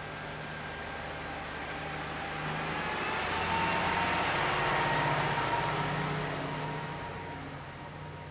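A train passing by: its running noise grows to a peak about four to five seconds in and then fades away, with a thin steady whine above the rumble.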